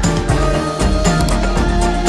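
Background music with a steady beat and pitched melody.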